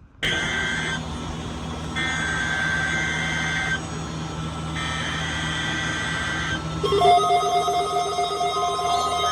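Weather alert radios sounding electronic alarms: high steady beeping tones that start suddenly and switch on and off in pulses of one to two seconds, over a steady low hum. About seven seconds in, a second, lower-pitched fluttering alarm joins and becomes the loudest sound.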